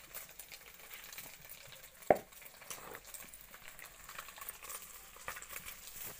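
Cubes of egg paneer frying in hot oil in a kadhai: a steady sizzle with small crackles. One sharp knock about two seconds in.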